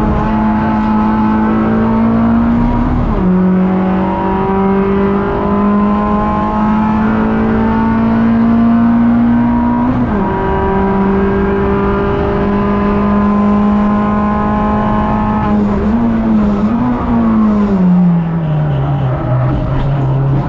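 In-cabin sound of a Suzuki Swift Cup race car's four-cylinder engine at full throttle. The engine note climbs slowly and drops sharply at two upshifts, about 3 and 10 seconds in. Near the end it briefly revs up, then its pitch falls away as the car slows.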